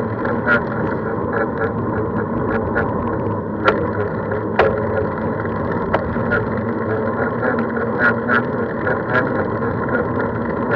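Steady rumble of wind and road noise on a moving camera, with scattered light clicks and rattles.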